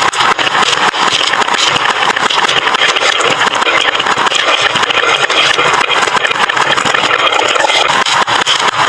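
Many marbles rolling and clattering down a wooden marble run slope, a continuous dense rattle of rapid clicks and knocks.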